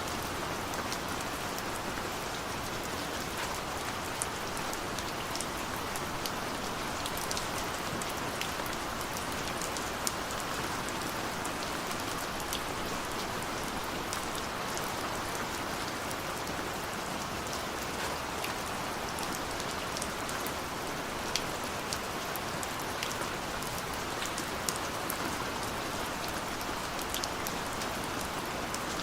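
Steady rain falling on a window pane: a continuous even hiss with scattered sharp ticks of single drops.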